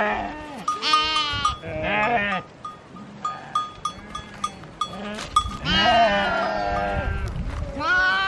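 A flock of sheep bleating, several wavering calls one after another with a longer one in the second half. Small bells on the animals clink in the gaps between the calls.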